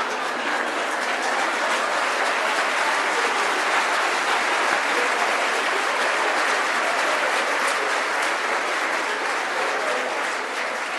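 Congregation applauding: a dense, steady clapping that dies away near the end.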